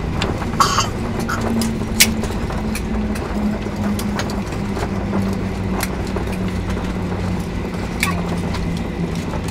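Cabin noise of a Boeing 737-800 rolling out on the runway after touchdown: a steady rumble with a hum that slowly falls in pitch as the jet slows, broken by a few sharp clicks and rattles.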